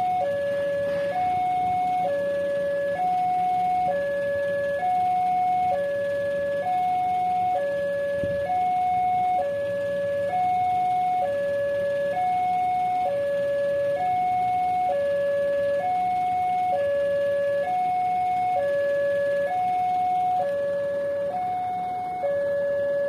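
Railway level-crossing warning alarm sounding its electronic two-tone signal. A high and a low tone alternate, each held about a second, in a steady repeating pattern. It warns that a train is approaching and the crossing is closed.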